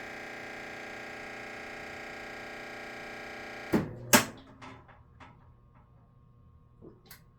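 Maytag MVWP575GW commercial washer buzzing steadily during its actuator test, then two loud clicks about four seconds in, followed by several fainter clicks that taper off as the buzz stops. This is the buzzing/clicking fault the washer makes when the actuator is activated, and it persists even after the motor, belt, drive clutch pulley, actuator and control board were replaced.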